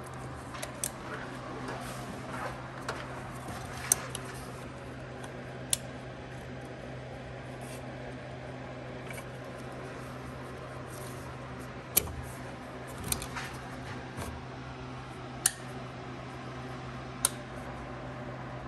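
Scattered sharp clicks and knocks, about half a dozen, with some rustling, from the hard plastic filter and tube of an AEM cold air intake being pushed and turned into place by hand, over a steady low hum.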